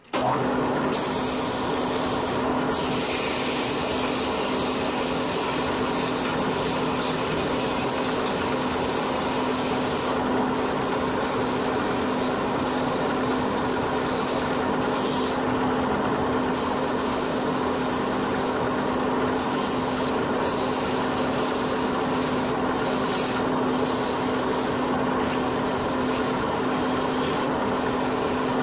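Wood lathe running with a steady motor hum while sandpaper is pressed by hand against the spinning wooden workpiece, a continuous rasping rub. The high hiss of the paper breaks off briefly several times as the grip shifts.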